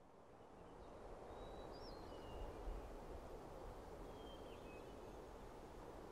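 Faint outdoor ambience fading in: a steady low wash of background noise with a few faint bird chirps, about two seconds in and again near five seconds. A brief low bump about two and a half seconds in.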